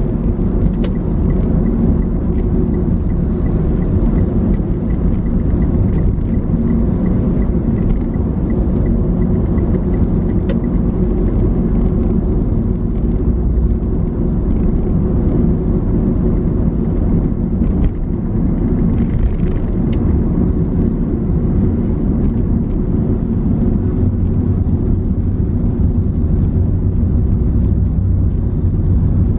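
Steady low rumble of road traffic and vehicle engines moving slowly in congested city traffic.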